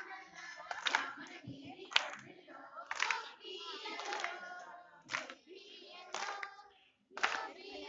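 A group of women singing together while clapping in unison, about one clap a second, with a short lull near the end before the clapping and singing resume.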